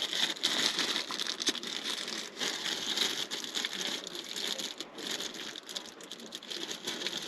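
A bag being opened and rummaged through: continuous crinkling and rustling with many small clicks.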